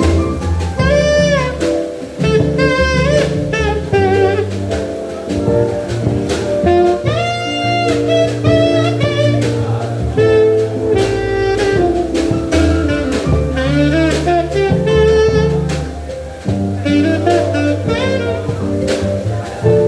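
Taiwanese-made alto saxophone with a DD Peng mouthpiece playing a jazz melody live, with the notes bending and sliding between pitches, unprocessed. Double bass, keyboard and a drum kit back it.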